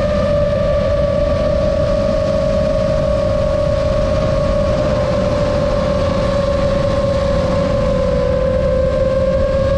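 FPV drone's brushless motors and propellers whining steadily in cruising flight. The pitch stays held and sinks slightly, over a low rumble of rushing air.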